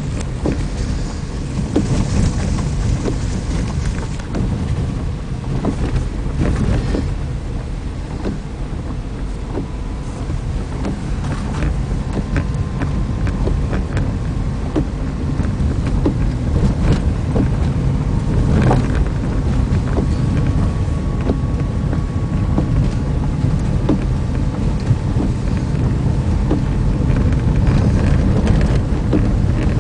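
A car driving along an unpaved dirt road: a steady low rumble with frequent short knocks and clicks from the rough surface.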